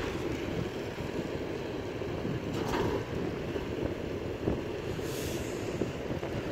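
Tractor engine running steadily close by, with wind buffeting the microphone.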